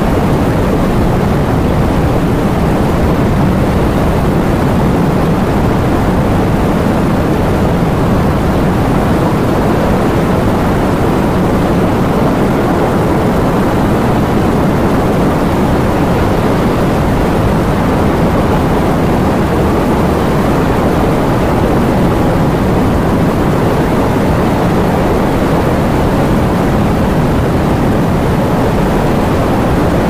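Heavy rain and wind making a loud, steady, dull roar, with no single drops, gusts or thunder standing out.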